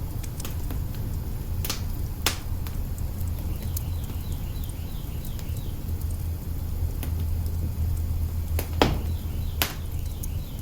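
Wood fire crackling in an open hearth: scattered sharp pops and snaps, a few louder ones, over a steady low rumble.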